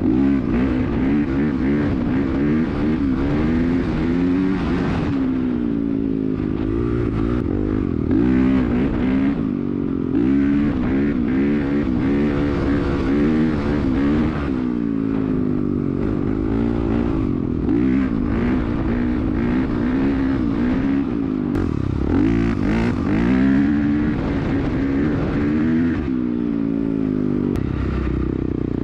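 Dirt bike engine being ridden, its pitch rising and falling again and again with throttle and gear changes.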